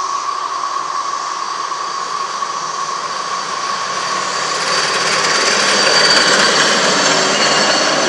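Chorus of 17-year periodical cicadas (Magicicada) as a steady drone, a constant roar. Over it, a hi-rail pickup truck rolls past on the railway track, its rumble on the rails building to its loudest about six seconds in.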